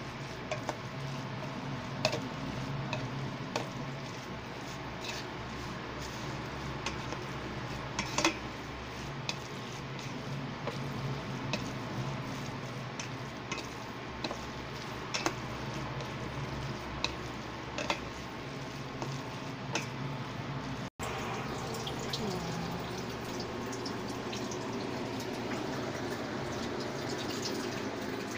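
Plastic spatula stirring wet, sauce-coated instant noodles in a stainless steel pan, with scattered sharp clicks as it knocks against the metal, over a steady low hum.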